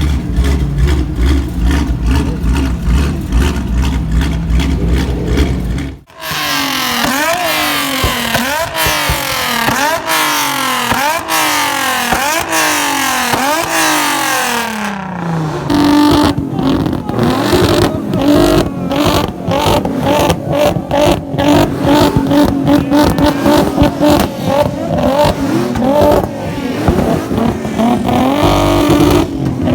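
Car V6 engine revved hard again and again, its pitch climbing and dropping about once a second. It then runs at steadier speeds with frequent sharp pops from the exhaust.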